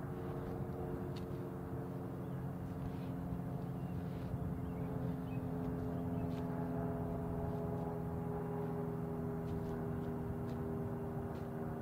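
An engine running steadily at an even idle, a low hum that barely changes pitch. A few faint clicks sound over it.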